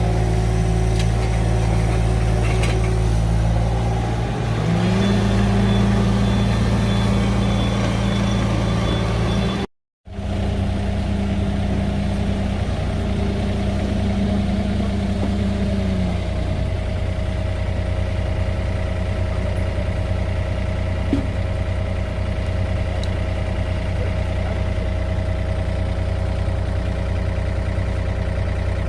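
Diesel engine of heavy excavation machinery running steadily. About four seconds in it revs up and holds higher, then drops back to idle about sixteen seconds in. A brief dropout cuts the sound just before ten seconds.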